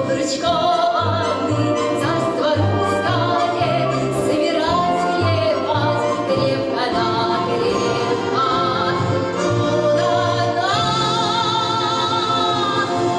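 Female soloist singing long held notes with a wide vibrato over a full orchestra, whose low notes shift every second or so.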